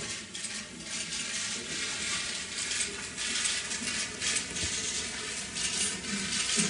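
Room noise in a hall: a steady hiss with scattered faint clicks and rustling.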